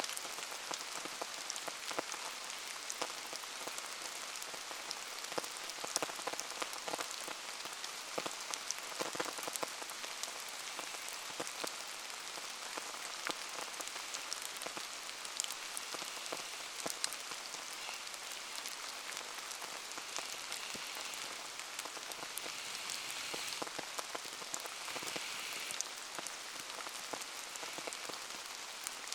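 Steady rain falling on and around a wood bonfire, with many scattered sharp ticks and pops from the drops and the crackling fire.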